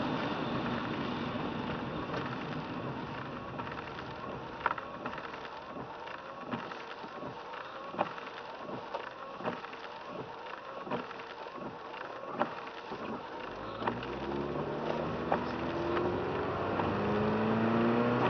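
A car driving on a wet road: tyre hiss that fades as it slows to a stop, then light regular clicking about twice a second while it waits. About fourteen seconds in, the engine rises in pitch as the car pulls away and accelerates.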